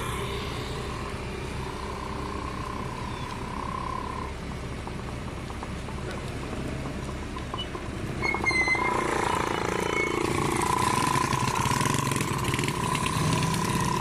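Excavator engine running with a steady high whine over it. About eight seconds in there is a short clatter with brief squeals, and the machine gets louder and stays louder.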